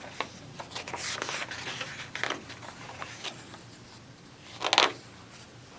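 Pages of a paperback picture book being handled and turned: scattered soft paper rustles and ticks, with one louder rustle of a page turning about three-quarters of the way through.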